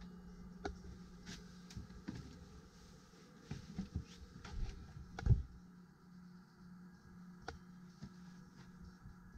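Quiet boat-cabin room tone with a low steady hum, broken by scattered knocks and thumps from footsteps and camera handling as someone steps into the forward cabin; the loudest thump comes about five seconds in.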